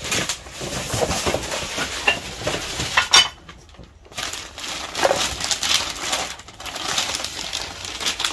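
Rustling and crinkling of packing material as a box of china is unpacked, with light clinks of dishes. It stops briefly about three and a half seconds in, then goes on.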